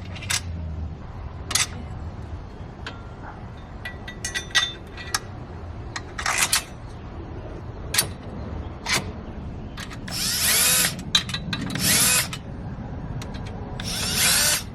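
A tool working a motorcycle crash-bar mounting bolt: scattered sharp metal clicks and clinks, then several short bursts of whirring or ratcheting, the loudest in the second half.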